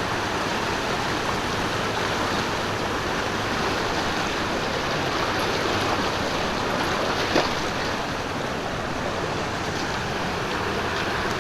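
Stream water flowing, a steady even rush, with one sharp click about seven seconds in.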